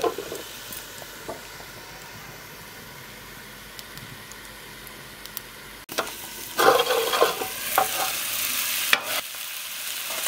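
Jackfruit pieces frying with spice masala in mustard oil in a kadhai on low heat, a steady quiet sizzle. After a sudden break a little over halfway, the sizzle is louder, with scrapes and knocks of a spoon stirring in the pan.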